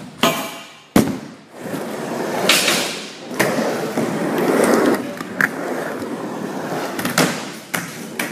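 Small hard wheels rolling over concrete, the rolling noise swelling through the middle, broken by several sharp clacks of a deck or board striking and landing: one near the start, one about a second in, another midway and two close together near the end.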